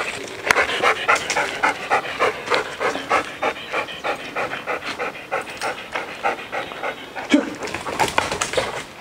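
Belgian Malinois panting hard and fast, about four breaths a second, with one brief louder sound near the end.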